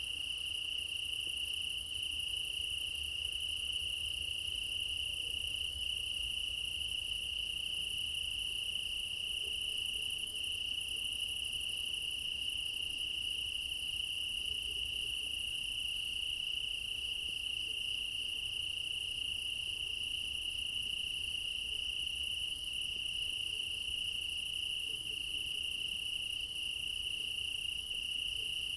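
Crickets chirping in a continuous chorus, a steady high-pitched trill that never lets up, with a fainter, higher insect trill above it.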